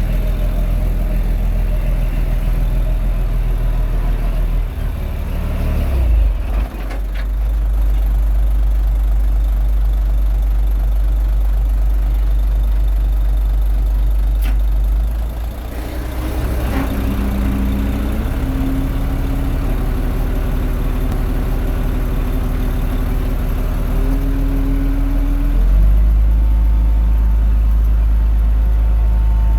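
Diesel engine of a Komatsu D21A mini bulldozer running steadily under changing load. The engine note shifts about six seconds in, again around sixteen seconds, and once more near the end, when it gets slightly louder.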